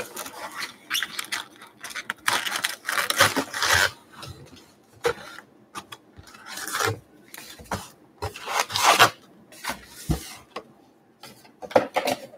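Trading-card box packaging being opened and handled: a series of irregular rasping, rubbing scrapes of cardboard and wrapper, with a soft thump about ten seconds in.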